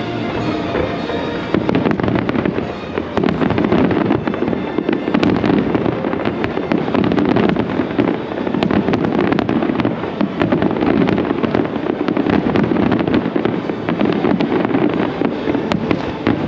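Fireworks display going off in a steady, dense run of booms and crackling, with many sharp cracks throughout.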